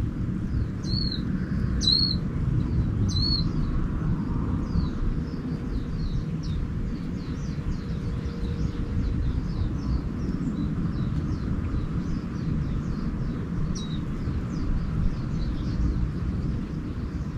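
Wild birds singing: four sharp high calls about a second apart, then a long run of rapid, thin, high twittering chirps, over a steady low rumble.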